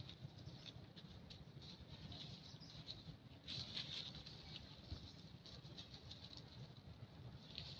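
Near silence: faint rustling with a few soft clicks, from macaques shifting on a branch over dry leaf litter while grooming.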